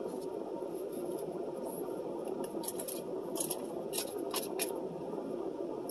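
Close-up chewing of mac and cheese with a handful of short wet mouth clicks and smacks in the middle, over a steady hum in the car cabin.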